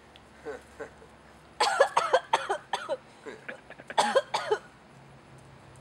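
A woman coughing hard in two fits, a string of harsh coughs starting about one and a half seconds in and a shorter burst at about four seconds, with a couple of faint coughs before. She is choking on a mouthful of dry ground cinnamon she has partly inhaled.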